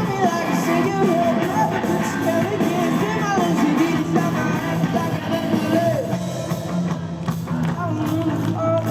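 Live pop-rock band playing, with drums, guitars and a sung melody over the first several seconds.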